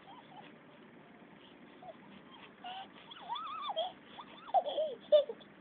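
A baby vocalizing in a string of high, rising-and-falling squeals and coos over the second half, with a sharp click near the end.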